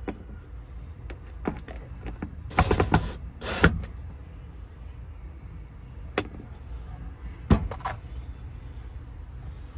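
Knocks and rattles of tools and hardware being handled: a few separate clatters, two clustered about a third of the way in and another pair near the end, over a low steady hum.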